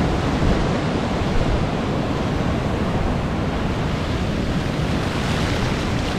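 Surf breaking offshore and foamy wash running up the beach, a steady rushing noise with wind buffeting the microphone.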